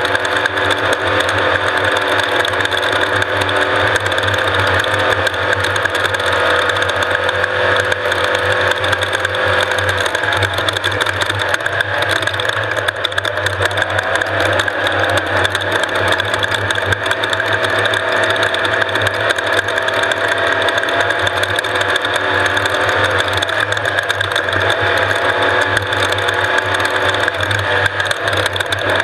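Off-road race vehicle's engine running hard and steady, with a fast mechanical rattle over it; its pitch drifts a little up and down.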